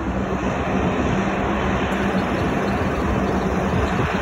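Steady engine noise of an airliner taxiing on the apron, with a faint low hum under it.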